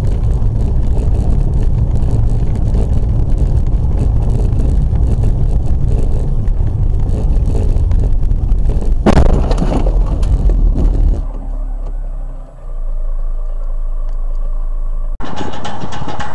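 Road noise inside a car driving on a rain-wet road: a steady low rumble with a hiss over it. About nine seconds in there is a brief loud noise. Two seconds later the sound thins to a low hum, and a different steady road noise cuts in abruptly near the end.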